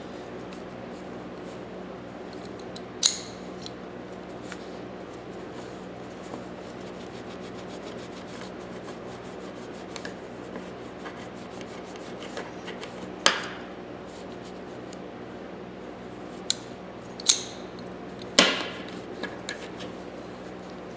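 Steel grooved pliers being handled and wiped down during cleaning: rubbing and a few sharp metal clinks, the longest a little after 18 seconds, over a steady background hum.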